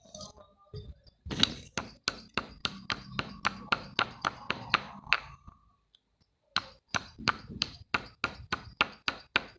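Slate pieces being struck with sharp, clinking knocks in a steady rhythm of about four a second, in two runs with a short pause between them. A low crumbling rumble sits under the first run.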